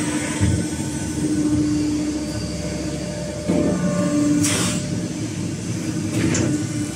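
CNC hydraulic press brake running, a steady machine hum with a brief hissing burst about four and a half seconds in.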